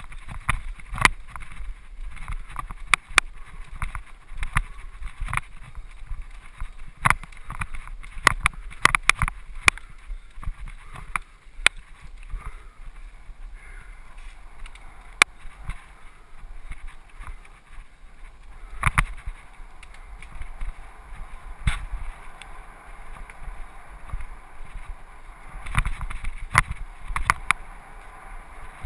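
Mountain bike ridden fast down a dirt singletrack: a steady rumble of tyres on the trail with frequent sharp clacks and rattles of the bike and camera mount over bumps and roots, heavier knocks in a few spots.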